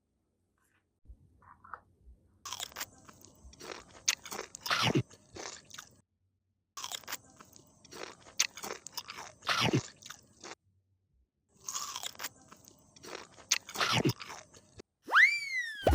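Crunchy biting and chewing sounds in three bouts of a few seconds each, as the cake is eaten again. Near the end comes a short gliding tone that rises and then falls.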